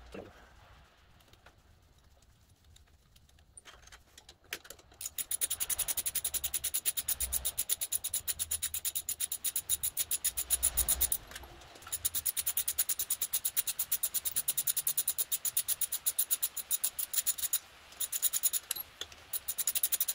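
Socket ratchet clicking in a fast, even run as it backs out cylinder head bolts, starting about five seconds in, with two short breaks.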